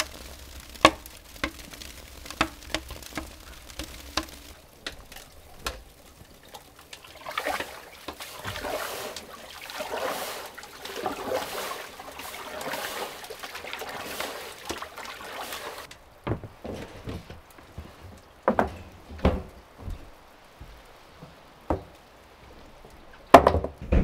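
Raindrops falling on a rusty metal plate, in irregular sharp ticks. Then the water of a wood-fired hot tub sloshing for about eight seconds as it is stirred with a wooden paddle, followed by scattered separate knocks, the loudest near the end.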